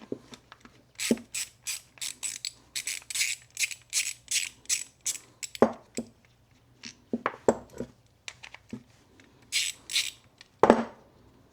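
Hand ratchet working a 7 mm socket on a lawn mower carburetor bolt: a quick run of short ratcheting strokes for a few seconds, then scattered clinks and knocks of metal tools and parts, the loudest near the end.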